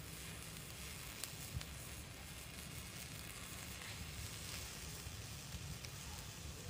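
Spicy apple-snail curry in coconut water simmering in a large wok-style pan, with sweet potato and carrot in it: a steady low bubbling hiss with scattered small pops, two slightly louder about a second and a half in.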